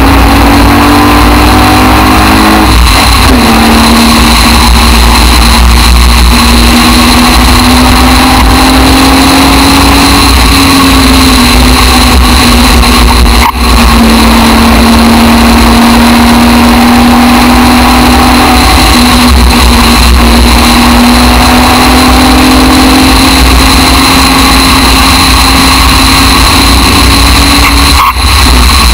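Aston Martin DBR1 tribute racing car's engine pulling hard on track, recorded from the open cockpit with wind rush on the microphone. The engine note climbs, drops back about three seconds in, then rises slowly again, with brief dips about halfway and near the end.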